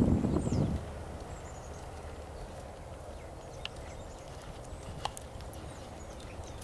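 A horse's hooves drumming on grass as it canters under a rider. The sound is loud for about the first second, then drops to faint hoofbeats, with a few light ticks and distant bird chirps.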